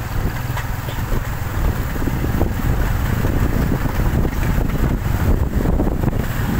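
Wind buffeting the microphone during a motorcycle ride on a rough dirt road, with a steady low rumble from the engine and the bumpy track underneath.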